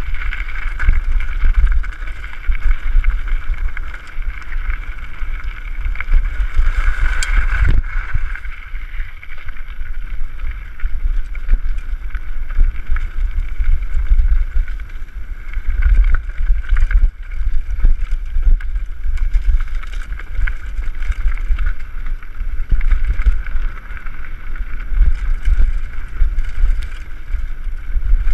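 Wind buffeting the camera microphone on a fast mountain-bike descent, a loud steady rumble, with the rattle of the bike and the noise of its tyres over a rough dirt and gravel trail.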